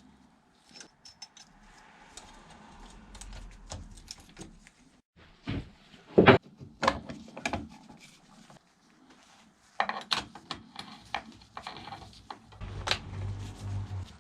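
Scattered metallic clicks and clanks of a chainsaw bar and chain being handled and fitted back onto the saw, with the loudest knock about six seconds in.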